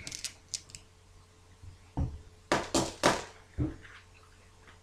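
Game dice being picked up and set down on a cardboard game board: a few light clicks, then a cluster of sharper knocks about two to three and a half seconds in.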